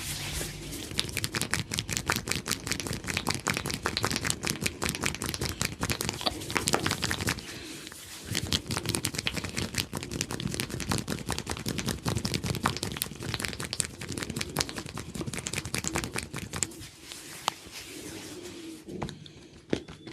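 Hair cracking during a barber's head massage: hair gripped and snapped between the fingers close to the scalp, a fast irregular crackle of many sharp clicks a second, thinning out near the end.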